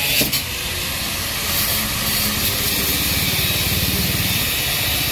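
Angle grinder cutting into a tractor's sheet-metal roof canopy: a steady, even hissing grind, with a fast low throb running underneath.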